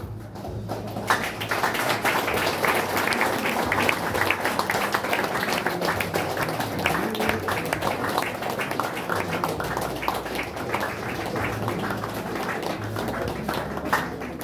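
Congregation applauding: many hands clapping at once in a dense, steady patter that starts about half a second in and eases off a little toward the end.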